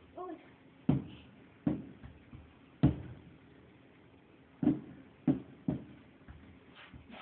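Fireworks bursting, heard from indoors: about six sharp bangs at irregular intervals, the loudest about three seconds in, with a few fainter pops between them.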